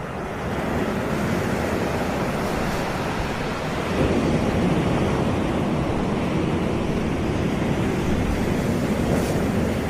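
Sea waves breaking and washing up on a beach: a steady rush of surf that swells about half a second in and again about four seconds in.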